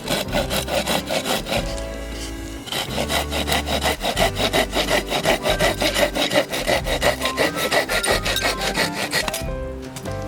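Hand saw cutting through wood in quick, rhythmic back-and-forth strokes, with a short pause about two seconds in. It stops near the end.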